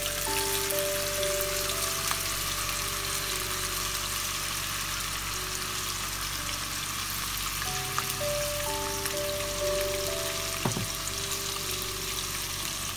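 Marinated chicken strips sizzling in hot oil in a nonstick pan as they are laid in to shallow-fry. The sizzle starts as the first strips go in and holds steady, with a few faint clicks of pieces being placed.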